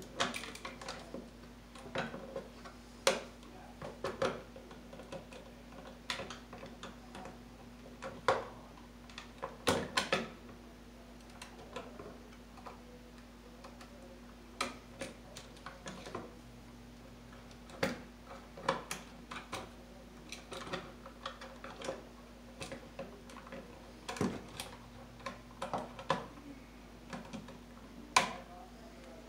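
Irregular small clicks and taps of hands working wires into a blue plastic electrical box overhead, a few of them sharper and louder, over a low steady hum.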